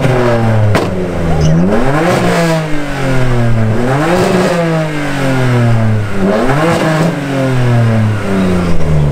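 BMW F82 M4's S55 twin-turbo inline-six, fitted with a catless downpipe, a straight-piped mid-section and a Vibrant rear exhaust, being free-revved about four times. Each rev snaps up quickly and falls back slowly. There is one sharp crack under a second in.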